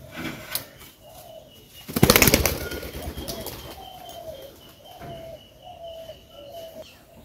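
A pigeon takes off with a loud burst of wing flapping about two seconds in. Short falling bird calls then repeat about once a second.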